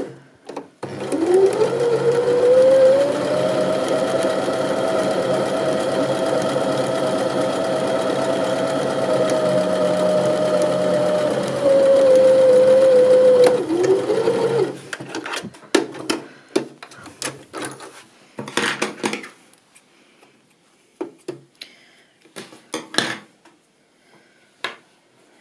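Janome 725s sewing machine stitching a straight seam: the motor speeds up over the first couple of seconds, runs at a steady speed, then slows and stops about fourteen seconds in. Scattered short clicks and rustles follow as the fabric is handled.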